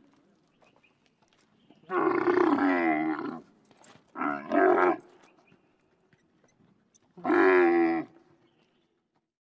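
Animal calls: three deep, bellowing calls that bend in pitch. The first, about two seconds in, lasts about a second and a half. A shorter, broken call follows about four seconds in, and a third comes about seven seconds in.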